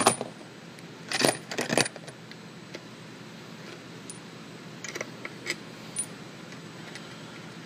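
Loose steel bolts from the transmission case clinking as they are dropped into a container: a quick run of sharp metallic clinks about a second in, then a few lighter taps later on.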